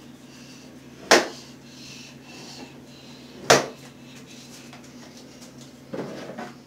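Three sharp knocks of hard objects, about a second in, in the middle and near the end, over a steady low hum and the faint rubbing of hands scrubbing wet hair with a shampoo bar.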